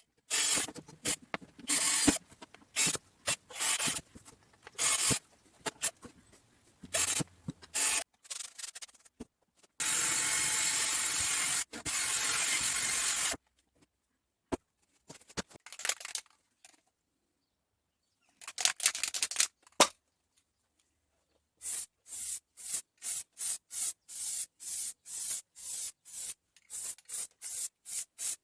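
Hand sanding: short rubbing strokes, irregular at first and then a quick regular run of about two to three strokes a second near the end. Partway through there is a steady hiss lasting about three and a half seconds.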